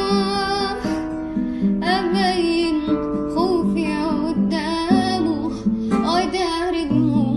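A woman singing a slow, emotional melody with wavering vibrato, accompanied by plucked acoustic guitar.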